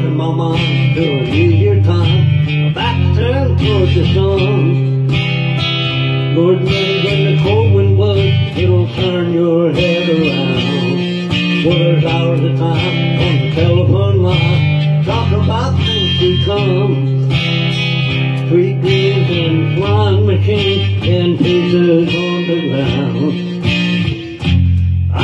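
Acoustic guitar strummed steadily, with a man singing along to his own playing.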